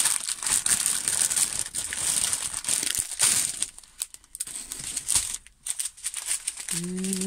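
Clear plastic cellophane wrapping crinkling and rustling as it is pulled open and handled, with short pauses about four and five and a half seconds in.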